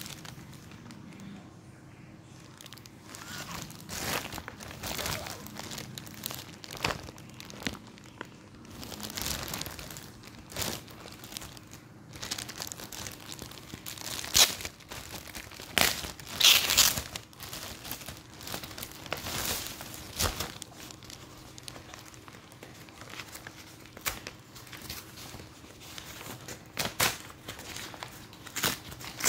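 Clear plastic shipping bag crinkling and rustling as hands handle it and pick it open, in irregular bursts that are loudest about halfway through. Near the end, brown paper wrapping is being torn open.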